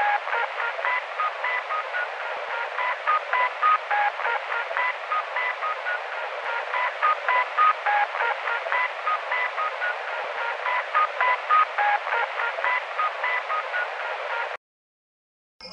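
Off-air shortwave recording of a maritime station's electronic tone signal: a rapid run of short beeps hopping between several pitches, like a little tune, over steady radio static hiss. It cuts off abruptly about a second before the end.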